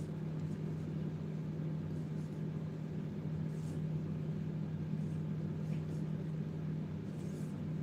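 Steady low machine hum with faint background noise, even and unchanging throughout.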